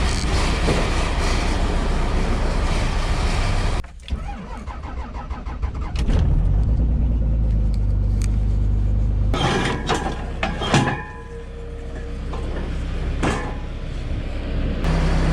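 Skid steer engine running, cut off abruptly after about four seconds. A quieter stretch follows with a steady low hum and several sharp metallic clicks and knocks. The engine running comes back suddenly near the end.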